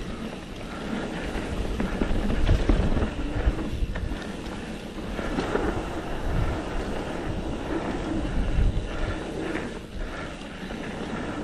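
Wind rushing over the microphone of a camera on a mountain bike descending a dirt trail, with the tyres rolling on dirt and occasional knocks as the bike goes over bumps.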